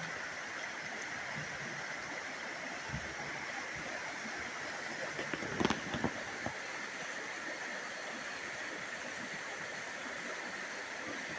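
Shallow river rippling steadily over a rocky bed. A short cluster of sharp knocks comes a little past the middle.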